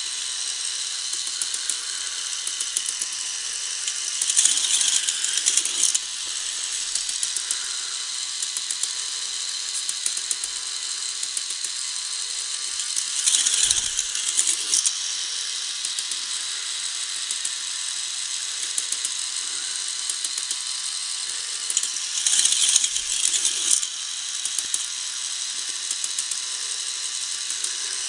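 K'nex Electric Inferno roller coaster running: a steady, dense clicking from its motorised chain lift. Three times, about nine seconds apart, the car rattles loudly along the plastic track for a second or two.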